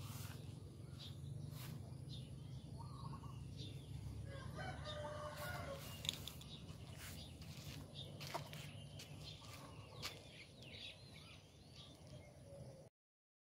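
A rooster crows once, a little over four seconds in, over a faint steady low rumble and scattered short clicks; the sound cuts off suddenly near the end.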